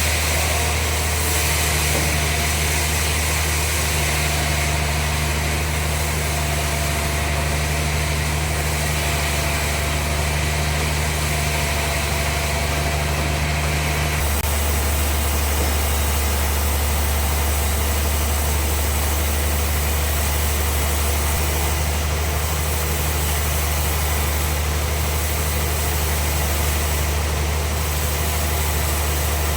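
Bandsaw sawmill machinery running with a steady low hum. About halfway through, a higher tone and a hiss stop abruptly while the hum carries on.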